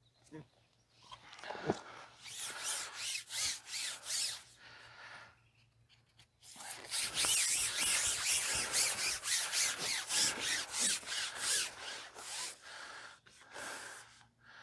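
Dry rubbing and scraping handling noise, a few strokes a second, in two runs with a short quiet gap about halfway, as fishing tackle is handled.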